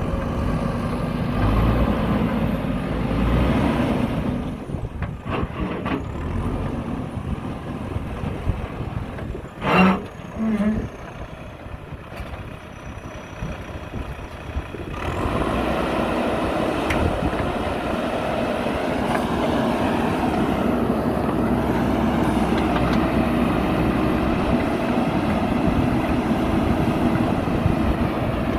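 Heavy diesel machinery at work: the engines of a JCB backhoe loader and a tipper truck running, with a short loud burst about ten seconds in. From about the middle on, the engine note is steady and louder.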